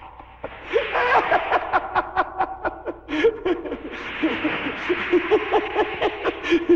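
High-pitched laughter in a quick run of repeated short 'ha-ha' pulses, starting about a second in, breaking off briefly near the middle and then going on.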